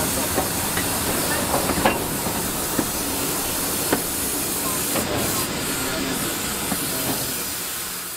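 Steady steam hiss in the cab of a small narrow-gauge steam locomotive, with scattered light clicks and knocks; it fades out near the end.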